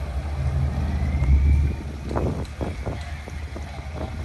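Low rumble of a motor yacht's engines manoeuvring while docking, mixed with wind on the microphone. The rumble swells about a second and a half in, then drops, followed by a few short knocks.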